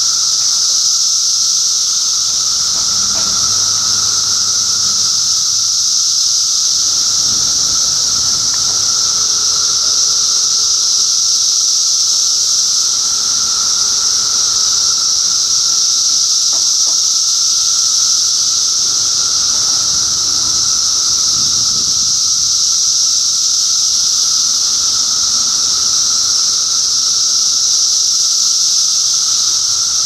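Dense chorus of periodical cicadas (the 2013 Brood II 17-year emergence) calling together: a loud, steady, high-pitched hiss-like din with a lower droning buzz underneath, unbroken throughout.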